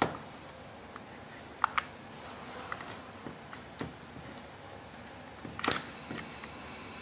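Plastic housing of a car steering-wheel clockspring being pried and forced apart with a thin metal blade: scattered sharp clicks and snaps, a quick double snap under two seconds in and the loudest cluster of cracks near the end.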